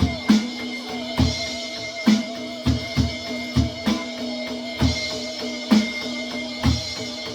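Roland electronic drum kit played along with the song's backing track: steady kick and snare strokes, about one a second, over held instrumental tones.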